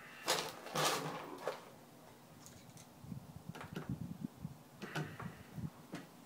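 Hand assembly of a 3D-printed plastic case with small screws: a few loud clattering knocks in the first second and a half as tools and plastic parts are handled on the wooden table, then faint clicks and scrapes as a screwdriver drives a small screw into the plastic.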